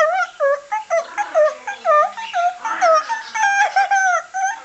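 A pet parrot calling in a rapid series of short swooping notes, about three a second, with a few longer held notes near the end.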